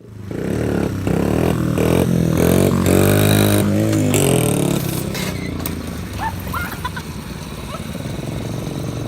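Small single-cylinder four-stroke mini bike engine revving hard, its pitch climbing and dropping with brief breaks in the throttle, then easing off to a lower, steadier run after about four and a half seconds.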